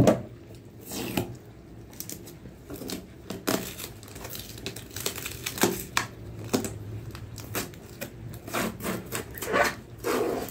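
Clear plastic packing tape being picked at and peeled off a cardboard box, in short irregular rips and crinkles.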